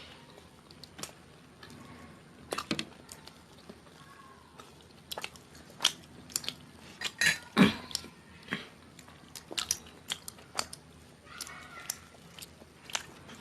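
Close-miked chewing and mouth sounds of someone eating chhole bhature: irregular wet smacks and bites, with a louder cluster about seven to eight seconds in.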